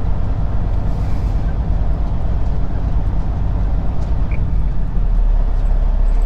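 Semi-truck's diesel engine running as the truck rolls slowly across a parking lot, heard from inside the cab as a steady low rumble. The rumble deepens and grows a little louder about five seconds in.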